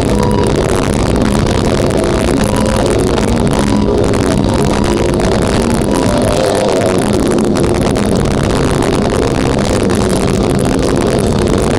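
Live death metal band playing, with heavily distorted guitars in fast-changing riffs over dense drumming, loud and continuous; the lowest notes drop out briefly about six seconds in.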